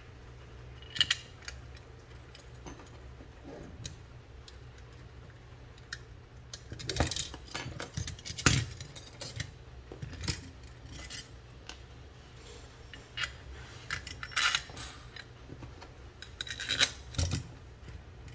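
Irregular metallic clicks, clinks and jangles from a horseshoe bicycle frame lock being handled, with its keys in the cylinder and its steel brackets, bolts and nuts knocking together. The clicks come in scattered clusters, busiest about seven to nine seconds in.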